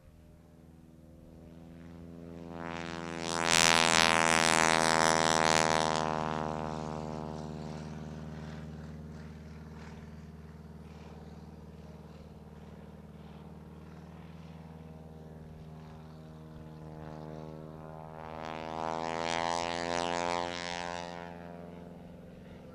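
Radial engine and propeller of a Grumman Ag-Cat aerobatic biplane running at power. The sound swells loud as the plane passes close about four seconds in, falls back to a steady drone, then swells again near the end.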